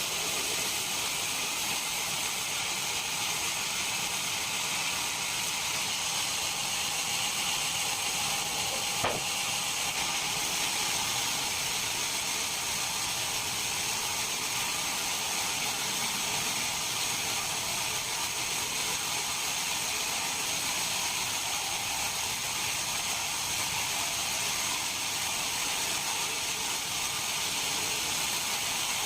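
Steady machinery noise: an even high-pitched hiss with a faint high whine running through it, and a single sharp click about nine seconds in.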